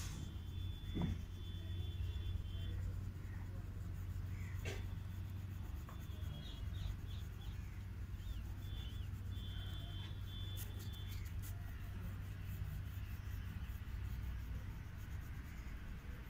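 A dark green crayon scratching and rubbing on paper as it colours in a drawn numeral, over a steady low hum. High short chirps come and go through the first part.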